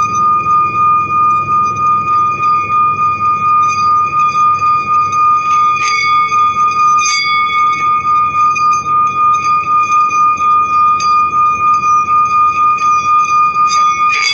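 Small hand-held singing bowl rimmed with a suede-wrapped wooden mallet, singing one sustained high tone with ringing overtones. The tone wavers in a steady pulsing beat, and there are a few light clicks of the mallet on the rim, around the middle and near the end.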